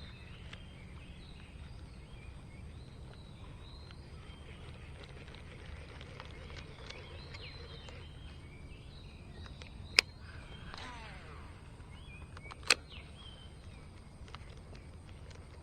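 A baitcasting reel being cast: a sharp click about ten seconds in, the spool whirring down as line pays out, then a second sharp click a few seconds later. Birds chirp throughout.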